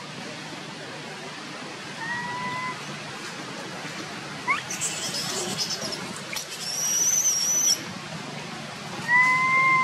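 Infant long-tailed macaque giving short, slightly rising whimpering coo calls, one about two seconds in and a longer, louder one near the end: the distress crying of a baby whose mother has stopped nursing it. A brief high, thin whistling tone sounds a little after halfway.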